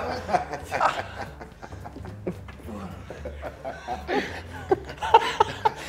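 Men chuckling and laughing softly in short, scattered bursts, with no clear words.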